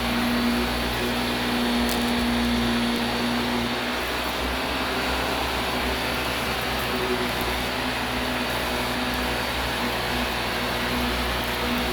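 Vacuum cleaner running steadily, a loud motor hum over a rushing air noise; the hum's tone drops back a little about four seconds in.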